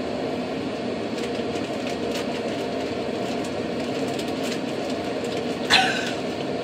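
Steady low hum of a ventilation fan, with a brief sharp sound near the end.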